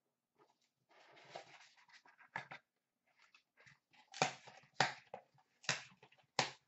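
Hands opening a cardboard trading-card box: scratchy rustling and sliding about a second in, then several sharp taps and clicks in the second half.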